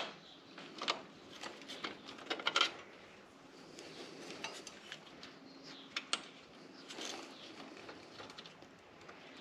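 Light metallic clicks and clinks of hand tools on small screws and a nut, with a sharp click at the very start and scattered taps after, as a fastener holding the trim is worked loose.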